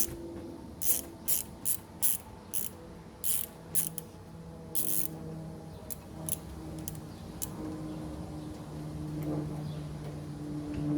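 Ratchet wrench clicking in quick strokes, about two or three a second, as a 10 mm bolt is backed out. The clicks thin to occasional single ticks after about five seconds, while a low steady hum builds.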